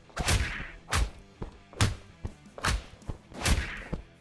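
Footwork hops landing on rubber gym flooring in a steady rhythm, five landings about 0.8 s apart, each a dull thud followed by a short hiss.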